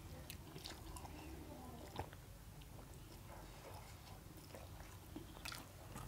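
Faint chewing and slurping of a mouthful of spicy ramen noodles, with a few small clicks, one about two seconds in and a couple near the end.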